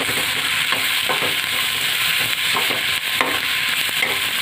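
Chopped onion, raw mango and spices sizzling in hot oil in a metal kadhai, with a slotted metal spoon scraping across the pan several times as the mix is stirred.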